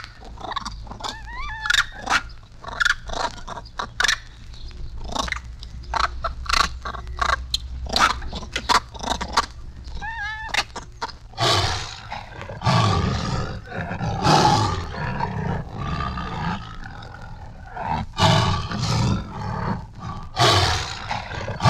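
A recording of a monkey calling in quick shrill cries, some sliding up and down in pitch, followed about halfway through by a tiger roaring repeatedly. It is played back from a flexi-disc record on a turntable.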